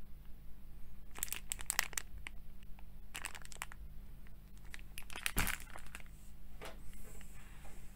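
Plastic film wrapper of a packaged rice ball crinkling as a hand handles it. The crinkling comes in several short spells, the loudest about five seconds in.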